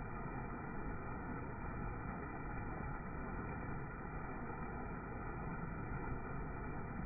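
Floodwater rushing over a small rock-ledge waterfall into a swollen creek, a steady low rush. The audio is slowed down with the slow-motion footage, so it sounds deep and muffled.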